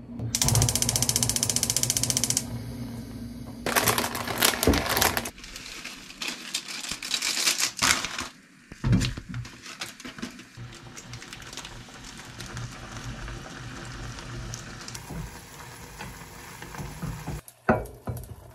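Instant jajangmyeon being cooked in a pan: noodles sizzling and being stirred, with small clicks and scrapes of a utensil. Near the start there is a loud, fast rattle lasting about two seconds, and a loud rush of noise follows a few seconds in.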